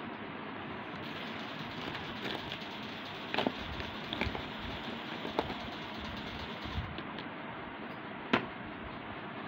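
Plastic pens and markers tapping and clicking against each other as a hand handles them in a hard pen case: a few separate sharp clicks, the loudest near the end, over a steady background hiss.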